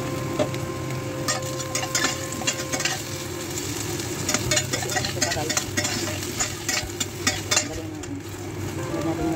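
Carrot chunks sizzling as they fry in oil in a stainless steel pan, while a metal slotted spatula stirs them, clicking and scraping against the pan many times from about a second in until near the end.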